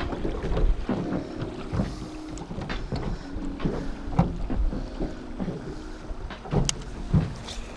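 Oars working in the oarlocks of a small aluminium jon boat, with irregular knocks and creaks, over river water and wind buffeting the microphone.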